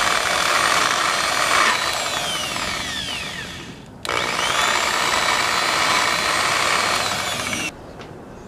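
Corded electric rotary buffer running at speed while a screwdriver is held against its spinning pad to scrape off caked carnauba wax; the motor note sags under the load. It stops abruptly about four seconds in, starts again at once, and cuts off near the end.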